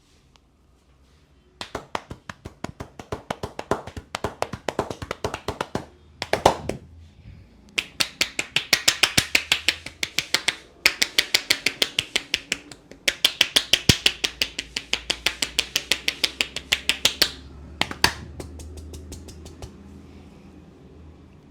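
Head massage with hand percussion: hands clapping and slapping rapidly on the head in runs of several seconds, with short pauses between, and single harder strikes before the second run and near the end.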